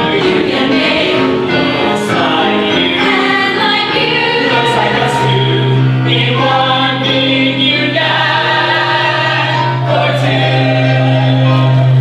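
A choir singing held chords in a gospel style. A low note comes in about four and a half seconds in and holds under the chords.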